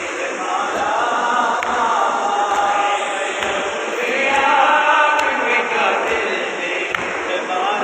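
A group of men chanting an Urdu noha, a Shia mourning lament for Sakina, together in unison.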